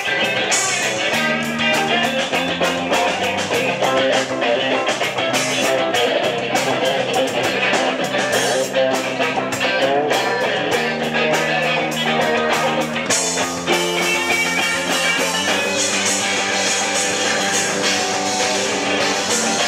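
Live rock band playing: electric guitars and bass over a drum kit, with regular drum hits.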